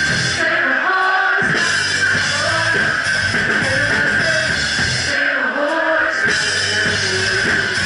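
Live rock cover band playing loud: electric guitar, drums on a Ludwig Vistalite kit, and a woman's lead vocal. Twice, near the start and about five seconds in, the drums and bass drop out for about a second while the pitched parts carry on.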